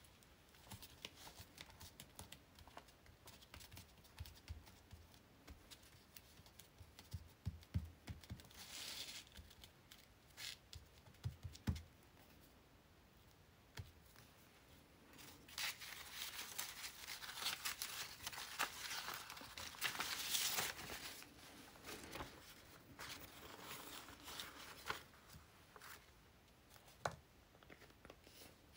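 Paper and fabric scraps being handled and pressed down on a wooden tabletop: soft rustling with small clicks and light thumps, and a longer stretch of paper rustling about halfway through.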